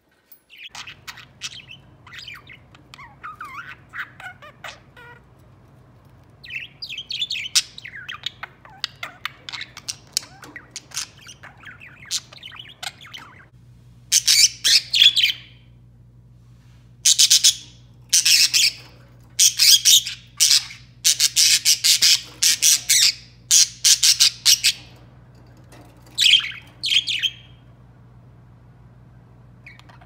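Budgerigars chirping and warbling: a soft, busy chatter for the first half, then loud, sharp chirps in quick runs for much of the second half.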